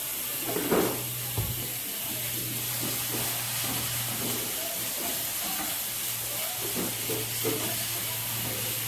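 Chopped collard greens sizzling in hot oil in a frying pan as they wilt, with a spoon stirring and scraping in the pan. A steady low hum runs underneath, and there is a knock about a second in.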